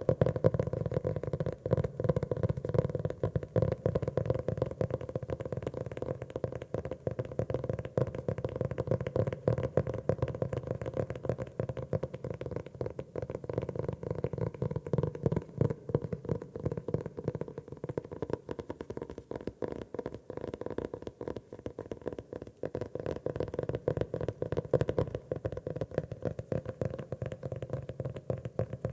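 Fingers tapping rapidly and without pause on a notebook's cover: a dense stream of dull, low taps.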